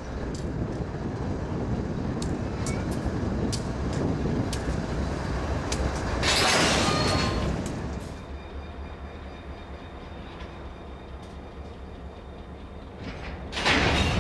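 Diesel freight locomotive rumbling as it creeps up to a covered hopper car, with scattered sharp metallic clicks. Just past the middle comes a loud hissing rush of about a second and a half; the rumble then drops away, and a second loud hiss comes near the end.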